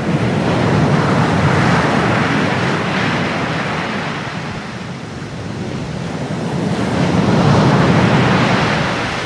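Waves washing in, a steady rush of water that swells twice, once near the start and again near the end.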